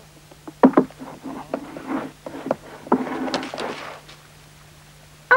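Cartoon sound effects of a puppy dragging a wooden clog across a plank floor and into its basket: a few light, irregular knocks and scuffs that stop about a second before the end.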